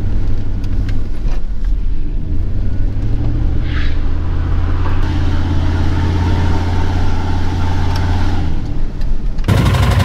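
1997 Dodge Ram 1500's 5.2 Magnum V8 running steadily under way, heard from inside the cab with road noise. The engine note rises about three seconds in, holds, then eases off. Near the end the sound cuts abruptly to a louder, rushing road-and-engine noise.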